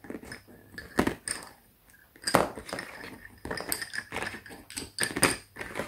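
Lace bobbins clacking against one another in irregular clicks as the pairs are crossed and twisted to work cloth stitch, with a louder clack a little before halfway and a quicker run of clacks in the second half.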